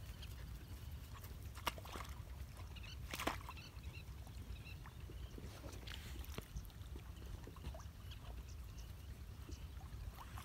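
Faint sloshing of dogs wading in muddy water, with a few short splashes, the sharpest about three seconds in.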